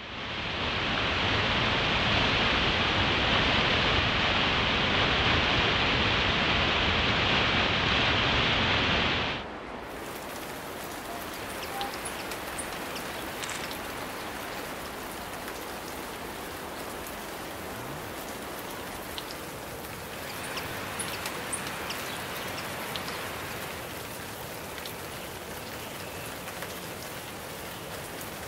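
White water rushing, loud and steady. About nine seconds in it cuts off abruptly, and steady rainfall follows, quieter, with individual drops ticking.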